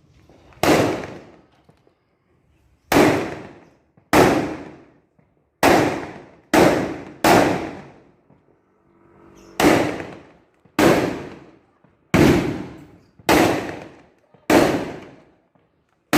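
Large firecrackers (petasan) exploding one after another at irregular intervals of about one to two seconds, about a dozen loud bangs, each with a long echoing tail.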